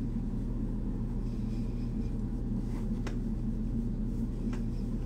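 Steady low hum of room tone, with two faint clicks about three seconds and four and a half seconds in.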